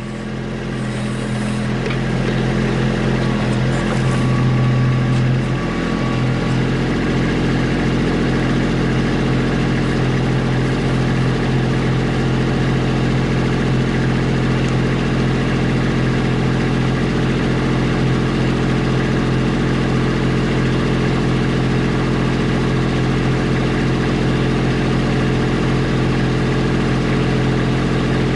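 Kubota B2650 compact tractor's three-cylinder diesel engine running steadily as the backhoe works. It rises over the first couple of seconds and is slightly louder around four to six seconds in.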